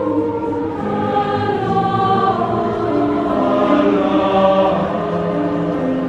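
Large mixed choir of young voices singing in chords, sustained notes shifting from one chord to the next about once a second.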